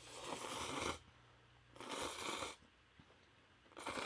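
Noodles in spicy broth slurped in through the lips three times: a long slurp over the first second, a shorter one about two seconds in, and a brief one near the end.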